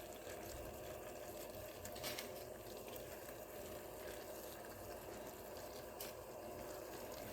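Faint steady bubbling hiss of pasta and sauce simmering in the pan, with two faint light clicks, about two seconds in and near the end.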